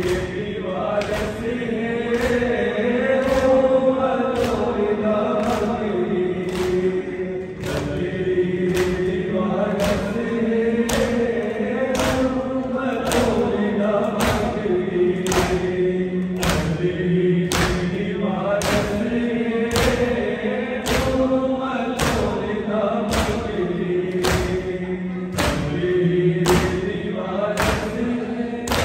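Shia mourners chanting a noha in unison while beating their chests in time during matam. The hand-on-chest slaps land as sharp thumps at an even pace, about three every two seconds, under the slow chanted melody.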